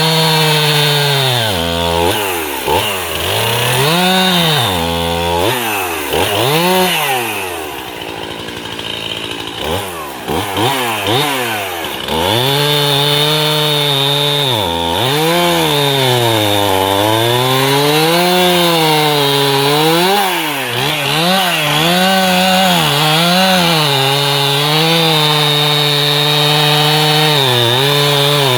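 Two-stroke chainsaw cutting wood, its engine pitch rising and falling over and over as it revs and bogs under load, easing off to a lower, quieter run for a few seconds about a third of the way in.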